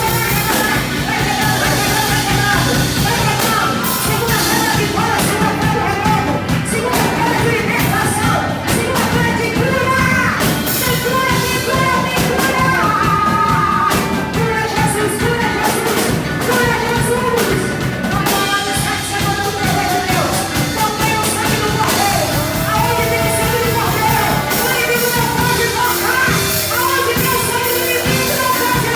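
Christian praise song: voices singing a melody over a band with drums, steady and loud.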